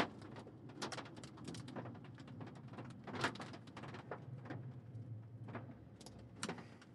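Small hailstones hitting the windshield and roof of a moving vehicle: scattered, irregular sharp ticks, a few a second at most, over the steady low hum of the vehicle driving.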